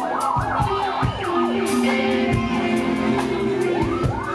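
Live rock band playing: an electric guitar lead with notes that slide and bend up and down, over drums.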